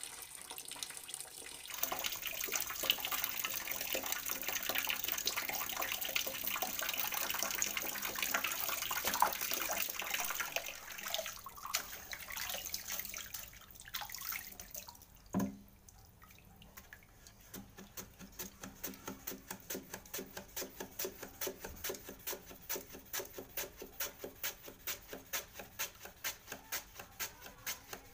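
Running water for roughly the first half, then a single knock. After that a potato is rubbed back and forth over the blade of a wooden mandoline slicer set across a basin of water, at about two slicing strokes a second.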